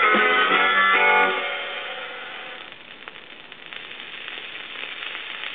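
Live rock band with electric guitars ending a song: the last chord stops about a second and a half in and dies away over the next second or so, leaving low crackly background noise.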